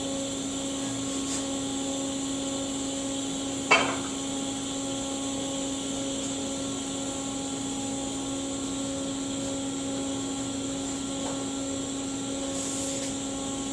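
A steady, even hum holding one pitch, with a single sharp knock about four seconds in.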